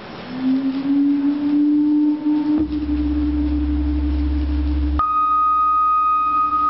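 Electronic drone music of sustained pure tones: a low held tone that slides slightly up as it enters, a deep hum joining about two and a half seconds in, and a higher ringing tone switching on suddenly near the middle.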